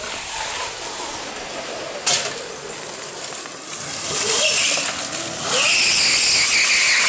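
A 128 hp electric go-kart driven hard on paving stones, its tyres squealing and scrubbing as it slides through turns. The squeal builds about four seconds in and is loudest and steady over the last second and a half, with a single sharp click about two seconds in.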